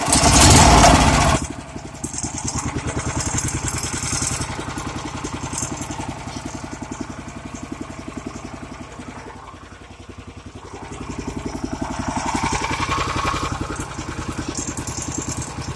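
11 hp Honda gasoline engine on a pressure washer running. It is loudest for about the first second and a half, then settles into a steady, rapid firing beat, the level sagging and swelling again around the middle.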